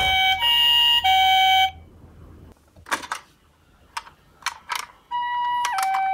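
Toy ambulance's electronic two-tone 'pee-po' siren, stepping between a high and a low note about every half second, cuts off under two seconds in. A few sharp clicks follow in the quieter gap, then the two-tone siren starts again about five seconds in.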